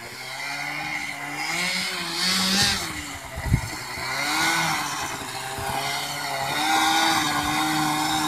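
1979 Scorpion Whip snowmobile's two-stroke engine, run without its hood, revving up and easing off as the sled is ridden across the snow, its pitch rising and falling. A sharp knock about three and a half seconds in.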